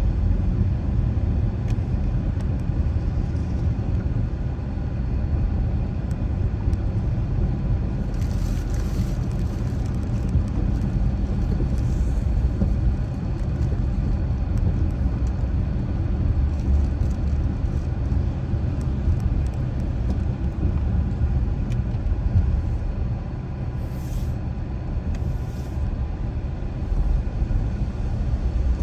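A car driving at steady speed: a low, even rumble of road and engine noise, with a few brief hisses about 8, 12, 24 and 25 seconds in.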